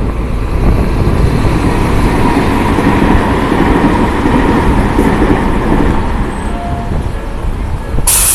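Tobu train running past at a level crossing, a steady loud rumble of wheels on the rails. A short burst of hiss comes near the end.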